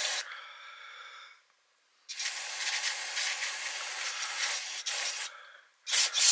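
Aerosol can sprayed through a thin extension straw into the passages of a chainsaw carburetor to blow them clear. A hiss ends just after the start and trails off into a softer hiss, a long spray of about three seconds starts about two seconds in, and two short blasts come near the end.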